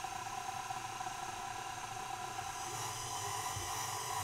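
Electric stand mixer running steadily with its dough hook, kneading yeast dough in a glass bowl: an even motor whine with several constant tones.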